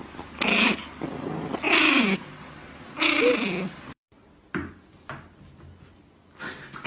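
An animal crying out three times, about a second apart. Each call is a drawn-out wail falling in pitch. After the third call only a few faint taps follow.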